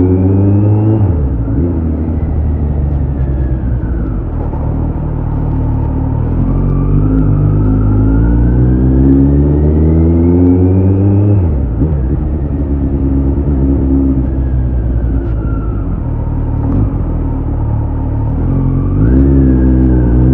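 Kawasaki Z900's inline-four running through an SC-Project CRT titanium slip-on exhaust under way at low speed. The engine note climbs slowly under light throttle and drops off sharply about a second in, again about halfway through and near the end, then climbs again each time.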